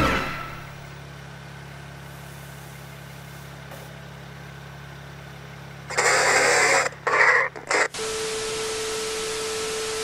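A faint low steady hum, then about two seconds of loud, harsh, stuttering glitch noise, then steady static hiss with a single steady tone under an end-logo sting.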